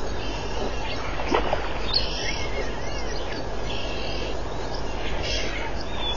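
Bush ambience: insects buzzing in short repeated bursts, with a few brief bird-like chirps, over a steady low background hiss.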